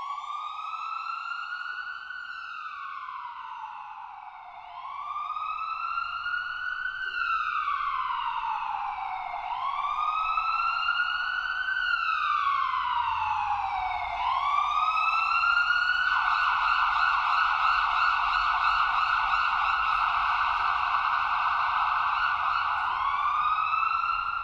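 Siren wailing, sweeping slowly up and down in pitch about every four to five seconds, then switching to a rapid warble about two-thirds of the way through before rising into a wail again near the end.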